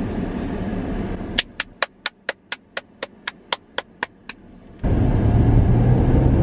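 Car cabin rumble, then about a dozen sharp, evenly spaced ticks, about four a second for three seconds, over a near-quiet background. After that a louder cabin rumble starts suddenly.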